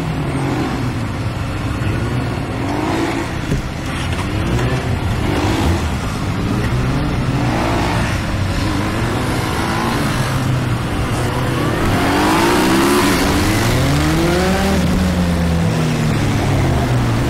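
BMW F650GS motorcycle engine revving in short repeated throttle blips, its pitch rising with each one about every second or so, as it is ridden slowly through tight turns. About two-thirds of the way through comes one longer rise and fall in engine speed.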